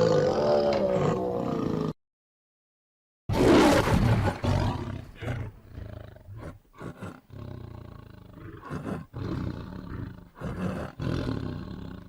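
Tiger calling: a wavering growl that cuts off sharply. About three seconds in, a loud roar starts and trails off into a run of shorter, fading calls.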